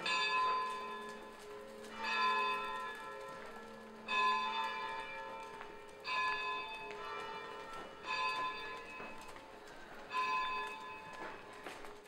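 A bell tolling: six strokes about two seconds apart, each ringing on and fading before the next.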